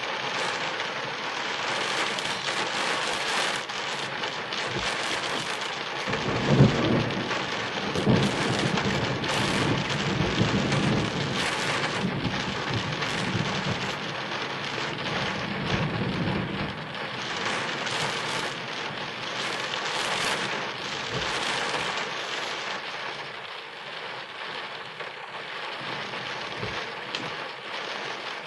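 Steady rain hiss throughout. About six seconds in a thunderclap breaks sharply, peaks again a second and a half later, then rolls on as low rumbling for about ten seconds before fading back under the rain.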